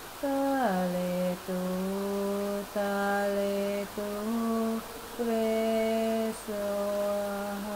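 A woman's voice singing a slow chant melody without clear words, in long held notes: six phrases with brief breaks between them, the first gliding down in pitch.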